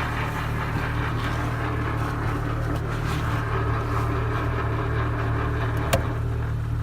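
1998 Jeep Wrangler running with its AX-15 manual transmission in reverse and the transfer case in neutral, giving a steady grinding whir over the engine's hum. The noise only comes in reverse gear, the fault the owner is trying to diagnose. A single sharp click about six seconds in.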